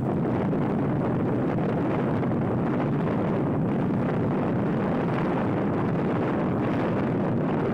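Steady rumble of a moving vehicle in city traffic, with wind buffeting the microphone.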